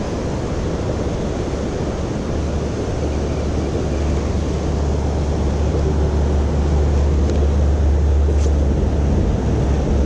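Steady rush of creek water pouring over a low weir, with wind buffeting the microphone as a low rumble that grows louder about four seconds in.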